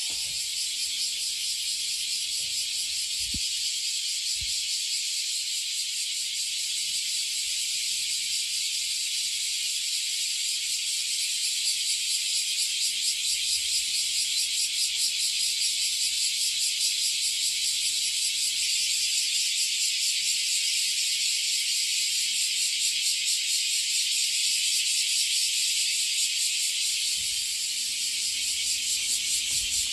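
Dense chorus of cicadas, a steady high buzzing hiss with a fast pulse, growing a little louder about halfway through.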